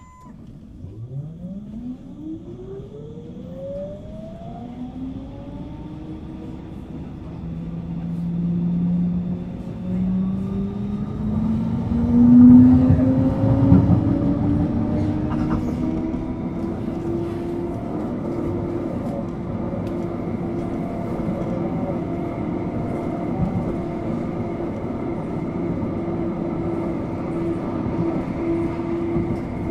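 Siemens NF8U tram's traction drive pulling away: several whining tones rise in pitch together for about twelve seconds. It then settles into a steady hum and whine as the tram runs at an even speed.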